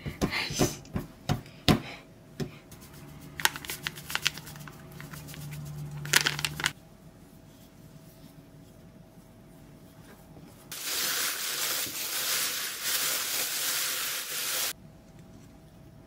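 Hands slapping and working sticky cookie dough on a plastic cutting board, sharp taps and clicks in the first couple of seconds, then scattered clicks. About eleven seconds in, a steady rustling hiss runs for about four seconds and stops abruptly.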